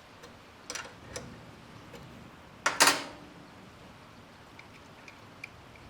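A few light clicks and then one louder short clatter about three seconds in: an LED pod light being handled and pulled off its metal mounting bracket.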